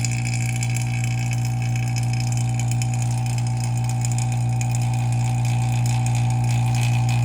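Oil-type vacuum pump of a phone-screen laminating machine running with a steady, loud hum, pulling vacuum on the chamber during the lamination cycle.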